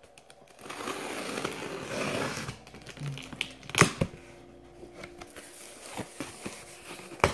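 Box cutter slitting the packing tape along a cardboard box's seam: a scraping rasp for about two seconds. Then the cardboard flaps are pulled open, with rustling and a few sharp knocks, the loudest about four seconds in and another near the end.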